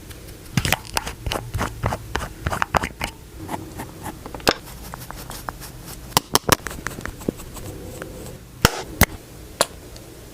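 Makeup products and their cases being handled up close: a run of sharp clicks and taps with soft scratching between them. They come thickly in the first few seconds and more sparsely after.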